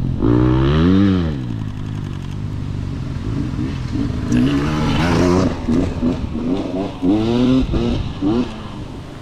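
Dirt bike engine revving as the bike rides along the trail, its pitch climbing and dropping several times: a long rise and fall about a second in, then shorter climbs around four to five seconds in and again around seven seconds in.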